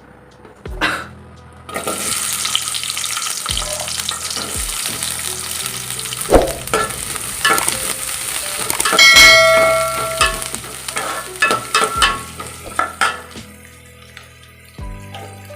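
Food sizzling in hot oil in a pan while being stirred with a metal spatula, with scraping and clinking strokes. The sizzle starts about two seconds in, a metal utensil clangs and rings briefly about nine seconds in, and the sizzle dies down near the end.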